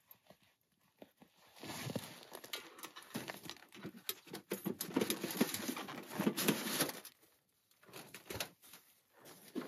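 Titanium stovepipe being twisted and pulled off a small titanium tent stove's flue collar: about five seconds of dense metal scraping and clicking, then a few scattered knocks as the pipe comes free.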